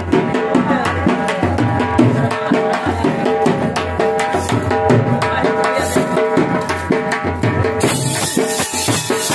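Folk dance music with a steady, driving drum beat under a sustained melody.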